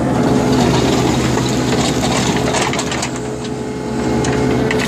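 Engine of a compact construction machine running steadily at working revs, with scattered light clanks and rattles.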